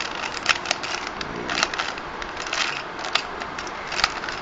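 Rubik's cube being scrambled by hand: its plastic layers twisting with irregular sharp clicks and scraping rattles.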